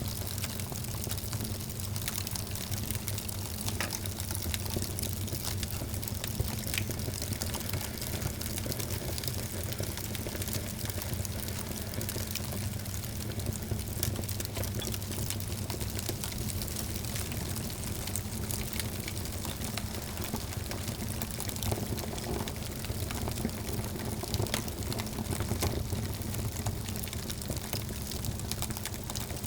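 Wood fire crackling steadily in a fireplace, with many small pops and snaps over a steady low rumble.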